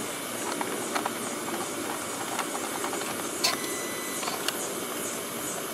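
Light clicks and taps of a hand tool and T25 screws being handled while the screws are loosened from a car's air filter box cover, over a steady hiss; the sharpest click comes about three and a half seconds in.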